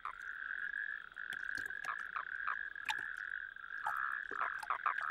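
Male toads calling at a breeding pond: a continuous high trilling chorus, with short sharp clicks scattered through it.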